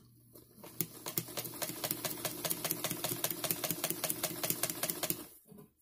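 Vintage all-metal Sewmor 990 sewing machine running and stitching through fabric, running smoothly: its motor hums up and the needle mechanism ticks evenly at about five strokes a second, then it stops shortly before the end.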